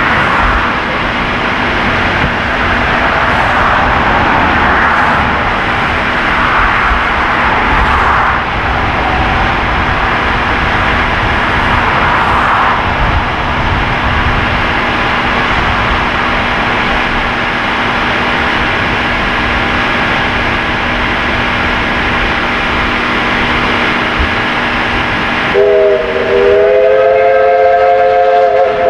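East Broad Top 2-8-2 steam locomotive No. 16 working its train, a steady rushing roar with slow swells. Near the end its steam whistle sounds a long chord of several notes, rising slightly as it opens.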